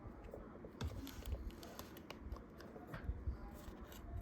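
Pokémon trading cards being handled and flipped through one by one: light clicks and rustles of card stock, with a few soft low thumps.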